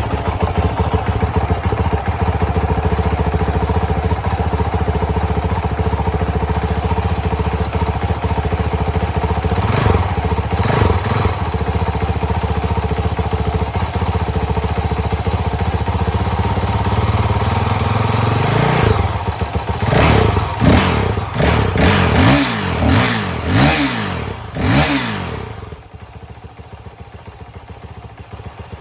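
2025 Honda CRF450RL single-cylinder four-stroke dirt bike engine idling through its stock exhaust. It is blipped twice about ten seconds in, then revved in a quick string of about seven throttle blips, and is switched off a few seconds before the end.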